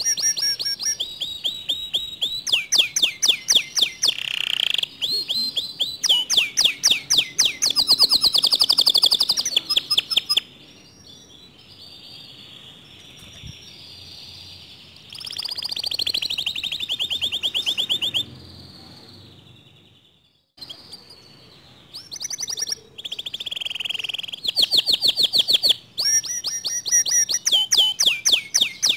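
Domestic canary singing loud, fast trills and rolls of rapidly repeated high notes, phrase after phrase with short pauses between them. The song cuts out briefly about two-thirds of the way through, then resumes.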